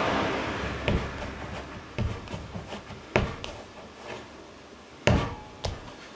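A large lump of clay being kneaded by hand on a wooden workbench: soft rubbing and pressing, with about five dull thumps as the mass is rocked and set down on the wood. The last two thumps come close together near the end.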